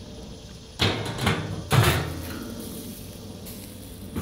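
Metal clanks from a flat steel sheet used as a grill lid being handled and lifted off the grill: three sharp knocks in the first two seconds, the loudest near two seconds in, then another knock near the end.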